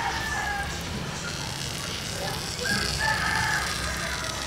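A rooster crowing: one drawn-out crow trails off just after the start and another comes about two and a half seconds in.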